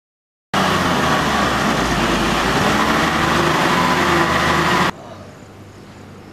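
Tata truck's diesel engine running loudly close by, a steady noise with a low hum. It starts abruptly about half a second in and cuts off suddenly near the end, leaving a faint outdoor background.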